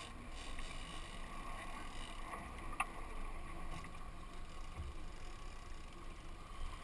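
Steady running noise of a moving fishing boat: its engine and water rushing along the hull, with a faint steady whine. A single sharp click about three seconds in.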